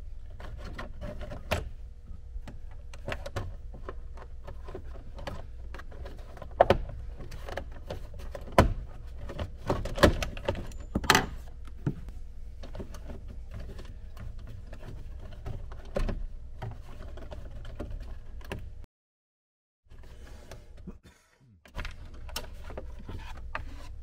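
Irregular clicks, knocks and light clatter of hand tools and loose parts while a Jeep Wrangler TJ dashboard is taken apart, over a steady low hum. The sound cuts out for about a second near the end.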